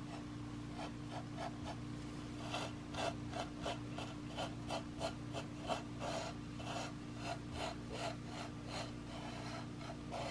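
Fingertips rubbing table salt back and forth on a wooden board, the grains grating against the wood in short strokes about three a second. The strokes are faint at first and grow louder a couple of seconds in.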